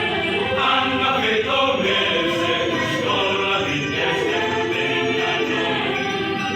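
High school choir singing, several voices together.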